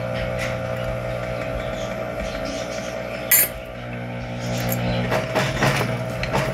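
Industrial sewing machine with its motor running steadily, a sharp click about three seconds in, then a quick run of stitches near the end as the zipper is sewn onto the bag panel.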